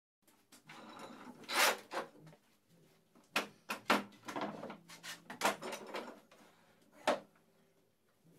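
A thick 4 cm plywood board being shifted across a wooden workbench and set into the bench's wooden vise: a string of irregular wooden knocks and scrapes, the sharpest about a second and a half in and about seven seconds in.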